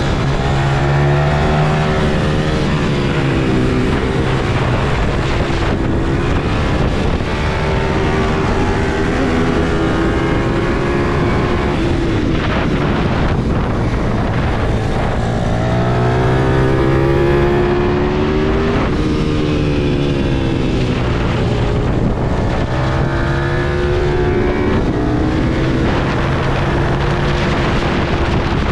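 Onboard sound of a racing pitbike's small engine being ridden hard, its pitch climbing in steps through the gears and falling away several times as the rider shuts off for corners, with wind rushing over the microphone.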